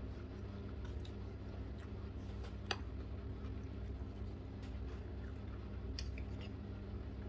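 Fingers mixing rice and sambal on a ceramic plate: soft squishing with a few light clicks, one sharper click about a third of the way in, over a steady low hum.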